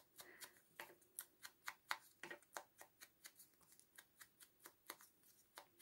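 Small ink dauber dabbing distress ink onto the edges of a paper card: a run of faint, quick taps, about five a second.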